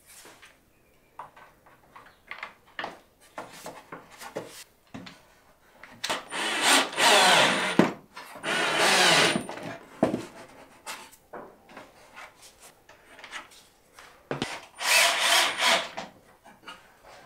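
Cordless drill driving screws into wooden trim: three short runs of the motor, two close together about halfway through and one more near the end. Light clicks and knocks of wood and clamps being handled come in between.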